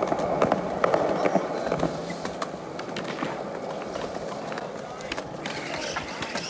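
Skateboard wheels rolling over concrete: a steady rumble broken by many sharp clicks as the wheels cross cracks and joints in the pavement.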